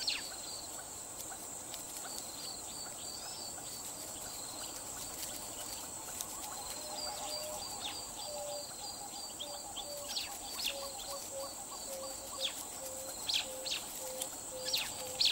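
Wild nature ambience: a steady high insect drone with rapid repeated chirps. From about halfway through, a slow series of short low calls falls slightly in pitch, and several quick, sharply falling bird-like calls come near the end.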